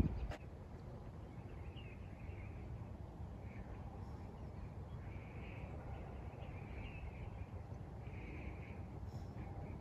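Faint bird calls, short ones every second or two, over a steady low rumble of wind on the microphone.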